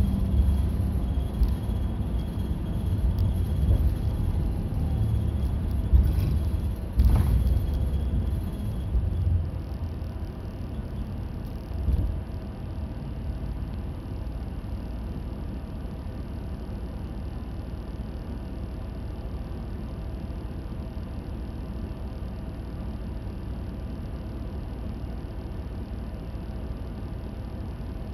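Route bus heard from inside the cabin on the move: a low engine and road rumble with a few knocks in the first third, then quieter and steadier from about a third of the way in.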